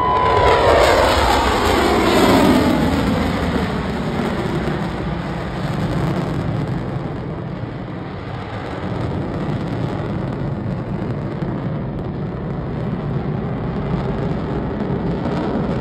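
Boeing F/A-18 Super Hornet jet flying past low: a loud jet roar whose pitch falls steeply over the first three seconds or so as it goes by, then a steady rumble of jet engines.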